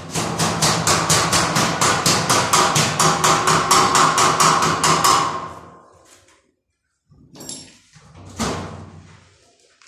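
Rapid hammering on a steel door frame, about five blows a second for some five seconds, the metal ringing under the strikes. Two separate knocks follow near the end.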